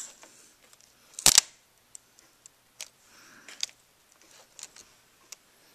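Scattered small clicks and crackles of fingers peeling adhesive tape off a laptop LCD panel's display-cable connector, with one short, sharp crackle about a second in.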